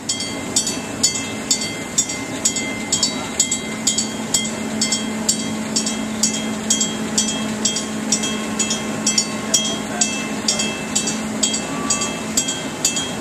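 Lift bridge warning bell striking steadily about three times a second, over a steady low hum.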